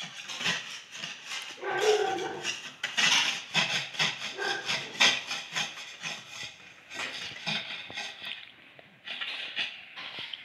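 A knife scraping and clicking against a plate while cutting cubes of mango flesh off the peel, in quick irregular strokes, with a short pitched cry about two seconds in.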